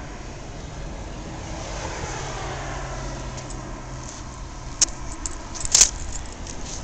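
A small green fruit being squashed under a sneaker sole on a concrete floor, over a steady low rumble. Its skin gives way with a sharp crack a little under five seconds in, followed by a short cluster of crackles about a second later.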